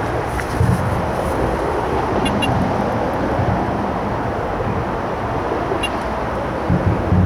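Steady drone of road traffic on the A14 bridge, with a few low thumps about a second in and near the end.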